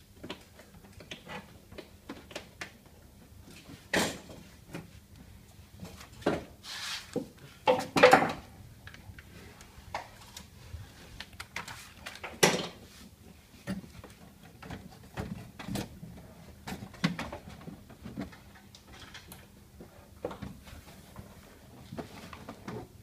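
Foil-backed vibration-damping sheets being handled, flexed and pressed by hand onto a car door's bare metal inner panel: scattered taps, knocks and foil crackles, loudest about eight and twelve seconds in.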